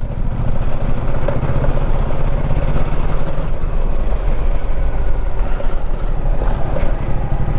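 Motorcycle engine running steadily at low speed as the bike rolls along, its firing pulse even and unchanging.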